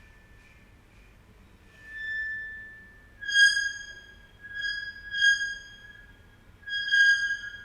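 Metal scraped across ceramic tile, giving high-pitched, violin-like squeals: a faint one about two seconds in, then four louder screeches in quick succession.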